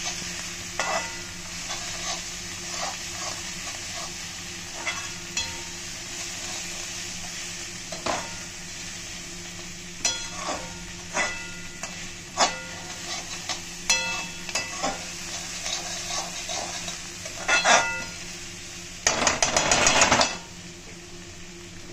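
Chopped vegetables and fenugreek leaves sizzling in a metal kadai while a perforated steel skimmer stirs them, clinking and scraping against the pan every second or so. Near the end comes a louder stretch of rapid scraping and clatter, lasting about a second.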